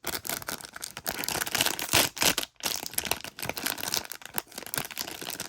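Crinkly plastic surprise-bag wrapper being torn open and handled by hand, with a dense run of crackles and small clicks.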